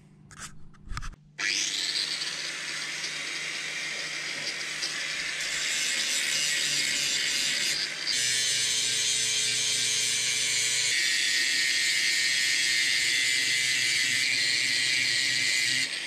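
Grinder running against the steel flail teeth of a Twose hedgetrimmer rotor, sharpening their worn edges: a steady, high grinding hiss that starts about a second in after a few clicks, with a short break about halfway.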